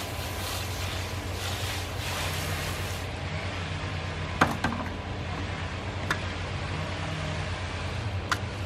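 Garden hose spray nozzle spraying water into a rubber pan, a rushing hiss that stops about three seconds in. A few sharp knocks follow over a steady low hum.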